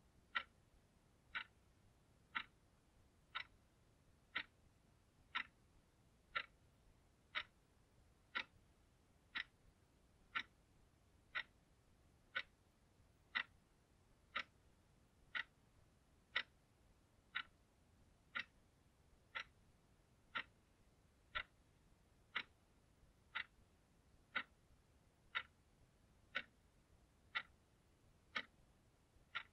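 Analogue alarm clock ticking, one sharp tick a second, evenly spaced.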